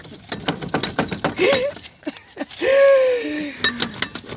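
Irregular metallic knocks and clinks from a VW Golf's running gear as it is checked for a knock, with a short falling tone about three seconds in.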